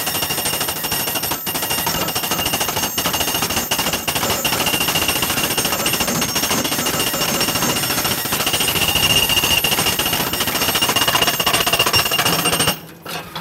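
Powered ground rod driver hammering rapidly, driving a coupled ground rod deeper into the soil, with a steady high metallic ring over the blows. It stops near the end.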